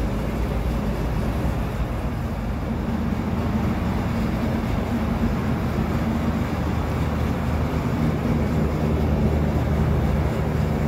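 Steady low mechanical drone with a deep hum, a machine running continuously.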